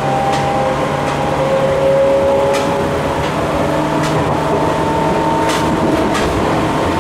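Interior running sound of a Seibu new 101 series resistance-control electric train: a steady whine from the DC traction motors and gearing over the rumble of the wheels, with a few sharp clicks as the wheels cross rail joints.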